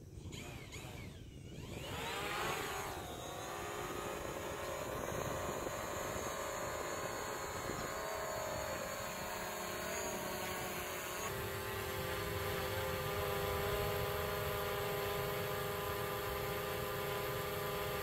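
DJI Mavic Pro quadcopter flying on its original 8330 quick-release folding propellers, a propeller whine of several steady tones over a low hum. The pitch rises and falls about two to three seconds in, then holds steady, shifting slightly about eleven seconds in.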